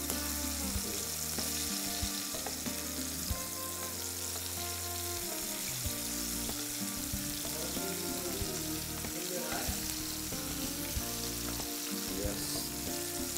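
Chicken wings frying in a pan of hot oil: a steady sizzle.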